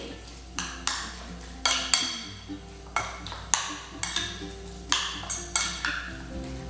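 A metal spoon clinking against a glass mixing bowl in irregular sharp taps while stirring wet, marinated liver strips, over quiet background music.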